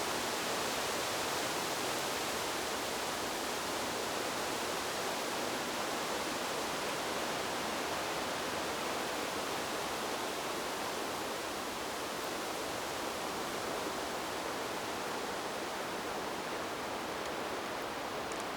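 Wind blowing through the leaves of trees: a steady, even rustling hiss with no gusts or breaks.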